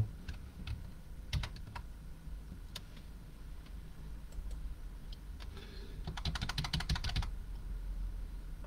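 Typing on a computer keyboard: a few scattered keystrokes, then a quick run of about ten keystrokes a second lasting just over a second, about six seconds in.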